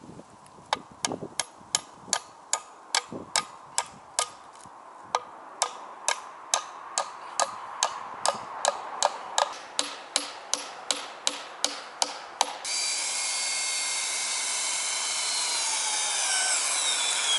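Hammer nailing a wooden board step onto a tree trunk: a steady run of about thirty strikes, two to three a second. For the last few seconds the strikes stop and a steady high hiss with faint gliding whistles takes over abruptly.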